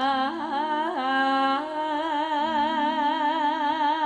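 A sinden, a Javanese female vocalist, singing long held notes with a quick, even vibrato, stepping to a new note about a second in.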